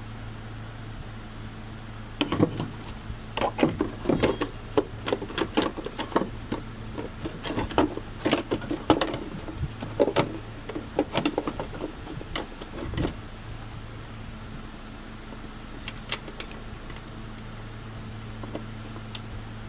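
Hard plastic knocking and clattering as a car's battery tray is pushed and seated into the engine bay: a dense run of irregular knocks from about two seconds in until about thirteen seconds, then a couple of single clicks near the end, over a steady low hum.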